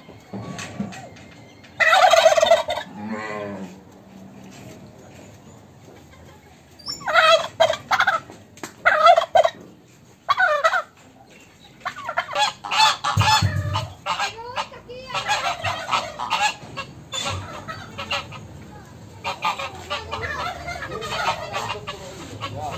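Domestic turkey toms gobbling again and again, in loud bouts of rapid warbling calls about a second long.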